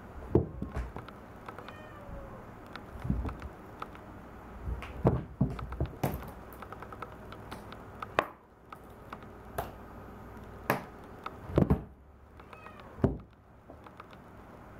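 A cat moving about inside a clear plastic storage box, its body and paws knocking against the plastic in a dozen or so sharp, uneven knocks, with a short meow about two seconds in.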